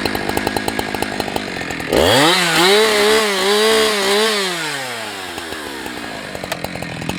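Husqvarna 365 two-stroke chainsaw idling, then revved sharply to high speed about two seconds in. It holds high revs with a slight waver for about two and a half seconds, then winds back down to idle.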